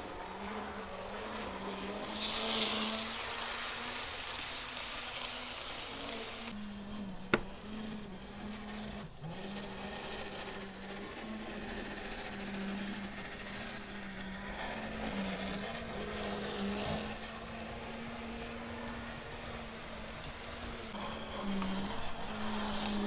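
Tyco HO-scale Spirit of 76 diesel locomotive's small electric motor humming steadily, its pitch wavering slightly, as it hauls a long train of cars, with the wheels rattling along the track. A single sharp click comes about seven seconds in.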